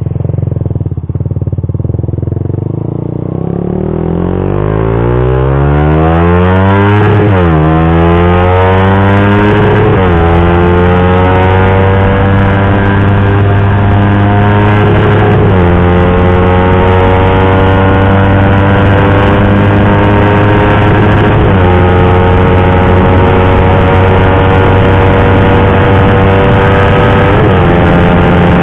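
Suzuki GSX-R150's single-cylinder engine through an R9 Misano aftermarket racing exhaust, accelerating hard through the gears. The pitch climbs in each gear and drops sharply at five upshifts, and each gear's climb is slower than the last.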